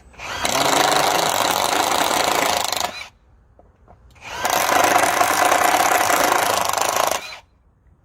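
Kimo brushless cordless impact driver running in two bursts of about three seconds each, with a pause of about a second and a half between them.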